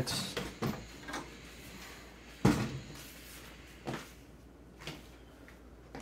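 A steel mid-tower PC case being handled and turned around on a table: a series of knocks and clunks, the loudest about two and a half seconds in.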